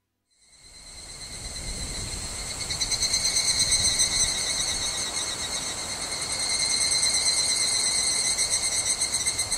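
Bell crickets (suzumushi) chirping in a steady, high-pitched chorus that fades in after a brief silence at the start.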